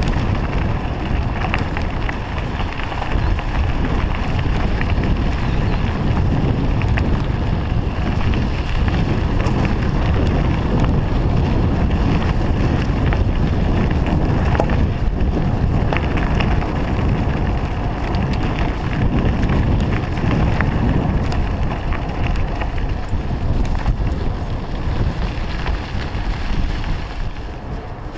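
Wind buffeting the microphone of a camera riding on a moving mountain bike, over the rumble of knobby tyres rolling on a gravel track, with scattered small clicks and rattles. It eases slightly near the end as the bike comes onto smooth asphalt.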